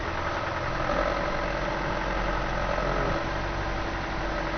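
Land Rover engine running steadily at low revs as the vehicle crawls along a bumpy off-road track.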